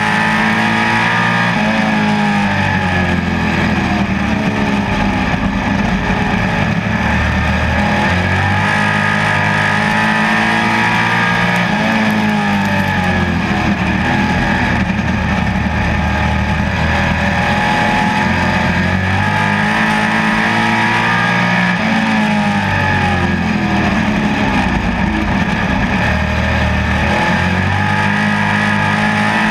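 Pro stock dirt-track race car's engine running hard at racing speed, heard close up. Its pitch rises and falls in a repeating cycle about every ten seconds, climbing as it revs up and dropping as it eases off, lap after lap.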